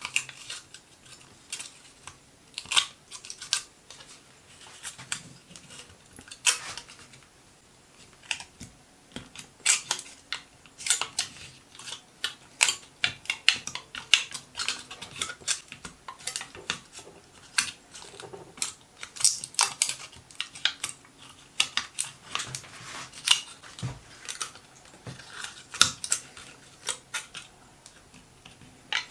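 Aluminium foil crinkling and crackling as it is folded and pressed by hand, in many irregular sharp crackles.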